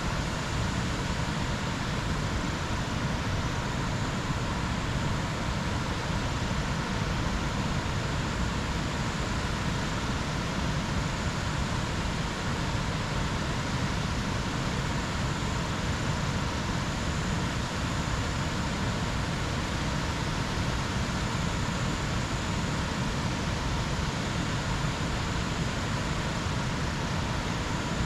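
Steady jungle ambience: an even rushing noise that does not change, with a faint thin high whine held over it.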